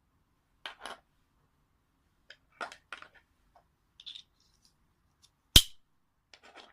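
Plastic dog-collar side-release buckle parts being handled: a scatter of light clicks and rattles, then one sharp, louder click about five and a half seconds in, followed by a few soft taps.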